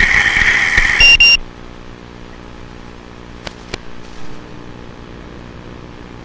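Racing quadcopter's brushless motors whining loudly, then cutting off sharply about a second and a half in, leaving a faint steady hum.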